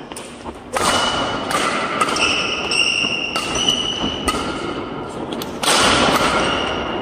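Badminton doubles rally: sharp racket-on-shuttlecock hits and squeaking court shoes over the steady noise of a busy sports hall.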